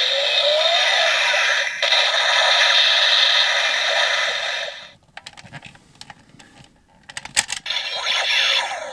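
DX Mega Ulorder transformation toy playing its finishing-move sound effect through its small built-in speaker, thin and without bass. It cuts off about five seconds in, followed by plastic clicks and rattles as the toy is handled.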